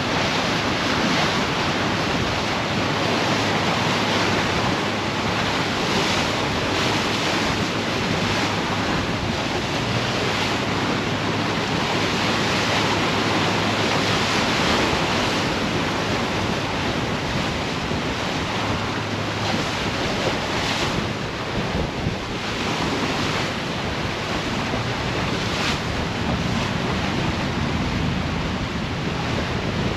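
Wind buffeting the microphone over the rush of sea water along the hull of a moving ship, a loud, steady roar of noise. A faint low hum runs beneath it.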